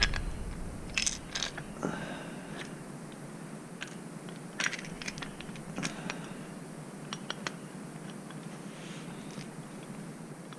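Scattered light metallic clicks and clinks, about a dozen, of small metal parts and hand tools being handled while fitting a motorcycle accessory.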